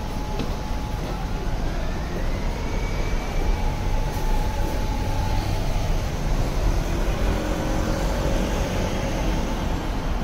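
Steady city street traffic noise with a low rumble. A high whine rises in pitch and then falls back over the first few seconds.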